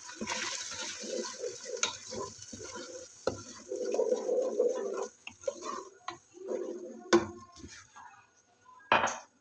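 Wet ground onion paste bubbling and sputtering in hot oil in a non-stick saucepan as a wooden spoon stirs it, with a few sharp knocks of the spoon against the pan. The bubbling dies down near the end.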